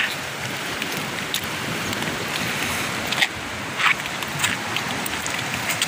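Steady rushing noise of sea surf and wind, broken by a few short crunches of footsteps on beach pebbles.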